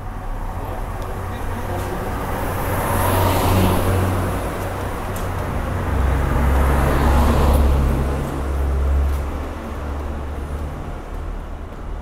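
Road vehicles passing on a quiet street, one after another. A car's rush of tyre noise swells and fades about three seconds in. A second vehicle with a deep engine rumble then passes from about six to nine seconds in.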